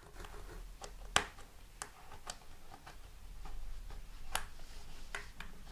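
Fingers and a plastic tucking tool pushing fabric edges under the ring of a drum lampshade, giving a few sharp, irregular clicks over faint rustling; the loudest click comes about a second in.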